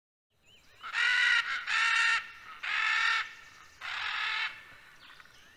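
Military macaws squawking: four loud, harsh calls roughly a second apart, each about half a second long, with fainter calling near the end.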